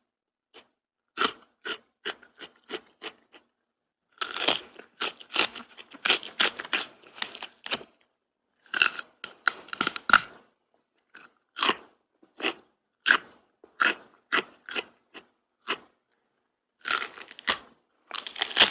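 Crunchy food being bitten and chewed close to the microphone: a series of sharp, dry crunches, some in quick dense runs and others spaced out about one every half to one second, with total silence between the groups.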